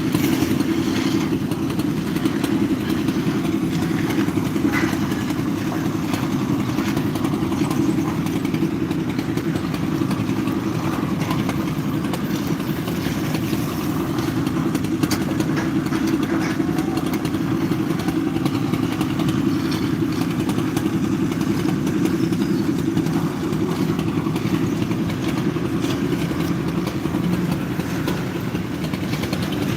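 An engine running steadily at an even speed, a continuous machine drone.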